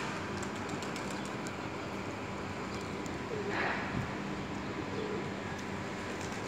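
Feral pigeons cooing softly over a steady background hum, with a brief rush of noise a little past halfway.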